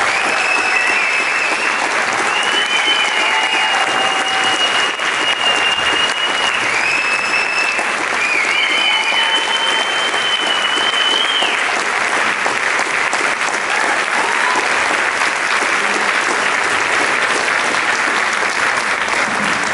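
Concert audience applauding loudly and steadily after a band piece, with several long, high whistles over the clapping in the first dozen seconds.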